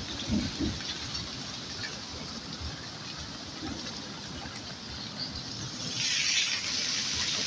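Heavy rain pouring down in a steady hiss, with a few low thumps near the start; the rain swells louder about six seconds in.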